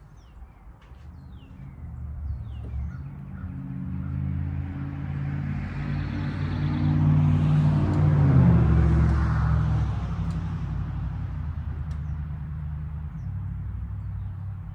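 A motor vehicle passing by: its engine hum and tyre noise build up, are loudest about eight seconds in, then fade away.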